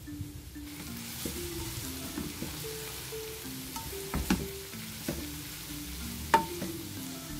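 Minced beef with spring onions sizzling as it sautés in a nonstick wok, with a slotted spatula scraping and clicking against the pan; the sharpest knock of the spatula comes near the end.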